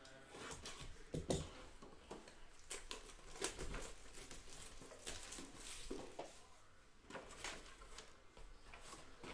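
Plastic shrink-wrap being torn and peeled off a sealed trading-card box, crinkling in quick irregular crackles and rustles.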